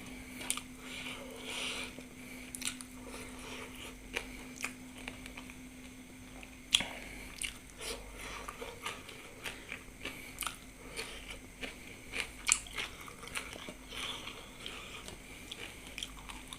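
A person chewing and biting food close to the microphone, with irregular crunchy clicks and mouth smacks. A faint steady hum sits underneath.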